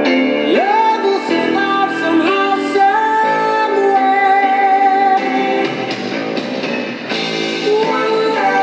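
Pop-rock song with a woman's held, sliding sung notes over guitar backing.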